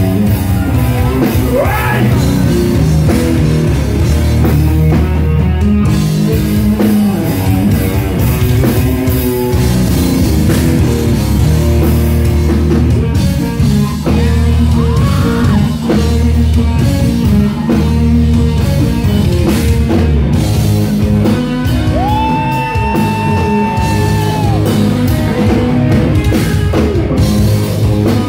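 Doom metal band playing live: distorted electric guitars, bass and drums with a man singing, loud and continuous. About three quarters of the way through, a long high note is held for a couple of seconds.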